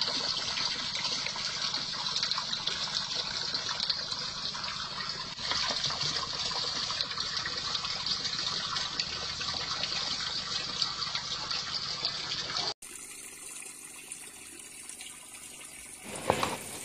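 Pond water splashing and gushing steadily at the surface of a koi pond. About 13 seconds in it changes abruptly to a quieter water sound.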